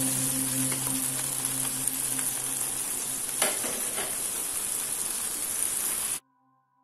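Battered enoki mushrooms deep-frying in hot oil in a wok: a steady sizzle with fine crackling, and one sharper knock about three and a half seconds in. The sizzle cuts off suddenly about six seconds in.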